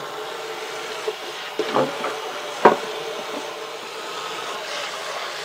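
Kitchen tap running steadily into a stainless steel sink while a stainless steel dog water bowl is scrubbed with a sponge, with a few knocks of the bowl, the sharpest near the middle.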